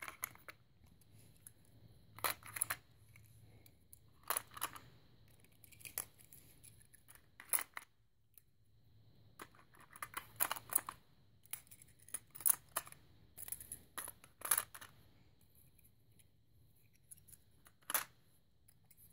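Small plastic First Gear toy garbage carts clicking and knocking against each other and a plastic box as they are packed in one by one. The clicks are sharp and irregularly spaced, about eighteen in all, with a pause of a few seconds near the end.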